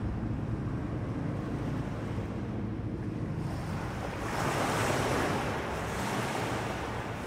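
Sea waves washing in, one wave swelling and breaking about four and a half seconds in over a steady low rumble of surf.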